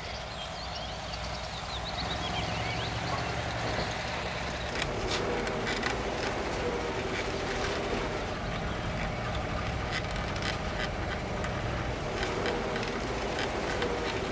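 An old bus driving along a rough road: a steady engine drone that grows louder over the first couple of seconds, with the rattles and knocks of the body from about five seconds in.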